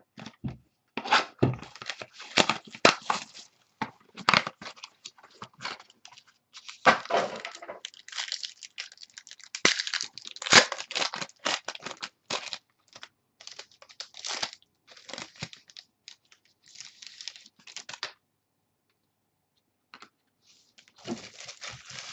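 Trading card packs and their foil or plastic wrappers being handled: irregular tearing, crinkling and rustling in clusters, pausing briefly near the end.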